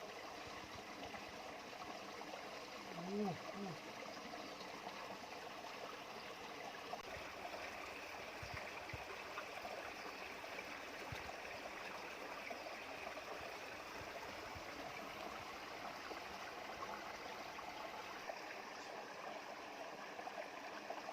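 Steady rush of flowing stream water, with a brief voice sound about three seconds in.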